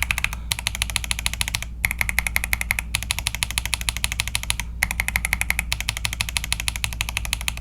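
Rapid keystrokes on a mechanical keyboard with Fantasy Virus tactile switches under FSA PBT doubleshot keycaps on a PC plate. They come in fast runs broken by short pauses every second or two.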